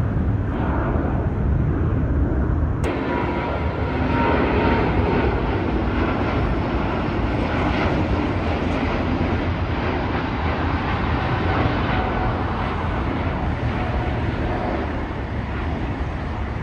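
Jet engines of departing airliners climbing out after takeoff: a loud, steady low rumble with faint whining tones over it. About three seconds in the sound cuts abruptly from a JetBlue Airbus A321 to an ITA Airways Airbus A350 climbing away, and it fades slightly near the end.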